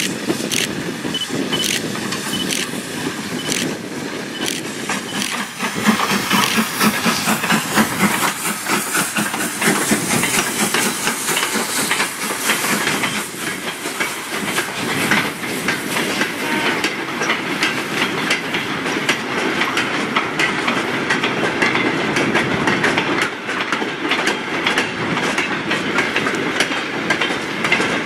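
A steam locomotive hauling a goods train of tank wagons passes, with steam hiss. The wagons' wheels clatter rhythmically over the rail joints.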